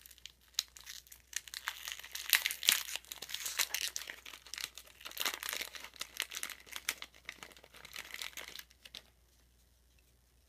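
Plastic wrapper of a trading-card pack being torn open and crinkled by hand: a dense run of crackles that stops about nine seconds in.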